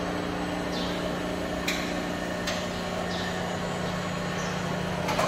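Commercial rice-crust frying machine running: a steady motor hum with a few sharp metallic clicks from its moving basket and arms.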